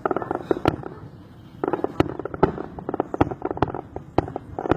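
Firecrackers going off in an irregular string of sharp cracks and pops, several a second, easing off for about a second near the start.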